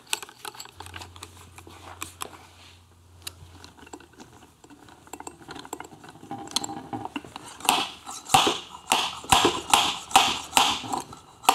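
Light metallic clicks and rattles of nuts and a steel rod being threaded onto a motorcycle clutch hub. Then, a few seconds before the end, a slide hammer strikes its stop about nine times, roughly two clacks a second, pulling the tightly splined inner clutch hub off its shaft.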